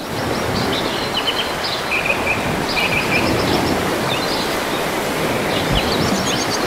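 Steady wash of surf on a beach, with small birds chirping in short bursts over it.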